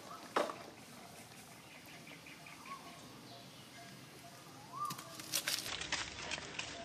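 Quiet outdoor ambience with a few faint, short chirping calls, a sharp tap about half a second in, and a cluster of scuffs and taps on dry leaves and concrete from about five seconds in as the monkeys and the person filming move about.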